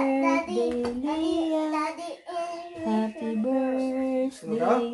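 Background pop song with a sung melody of held notes.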